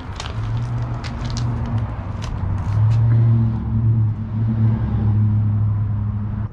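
A motor running steadily with a low hum, with light sharp clicks during the first few seconds; the hum cuts off abruptly at the end.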